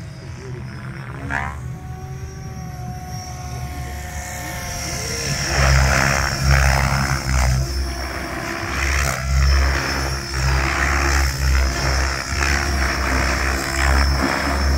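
Tron 7.0 electric 700-size radio-controlled helicopter flying aerobatics. Its rotor noise grows much louder about five seconds in, then swells and fades about once a second over a steady high whine.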